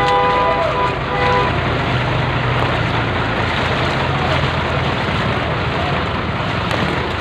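Vehicle driving through street floodwater: a steady rush of water washing around it over a low, steady engine drone.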